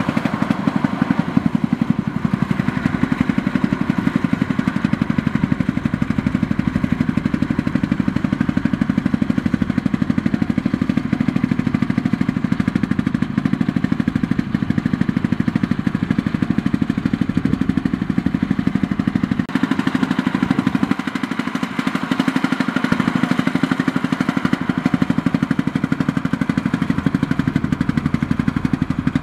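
Homemade farm truck's exposed single-cylinder diesel engine running steadily under the load of a full bed of rice sacks, a rapid even chugging. The tone shifts slightly about two-thirds of the way through.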